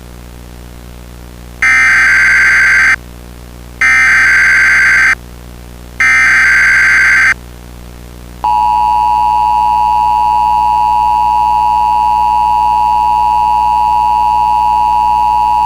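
Emergency Alert System SAME header: three identical harsh bursts of digital data, each about a second long, opening a Required Monthly Test alert. About halfway in, the EAS two-tone attention signal (853 and 960 Hz together) starts and holds steady. A constant low hum and hiss runs underneath.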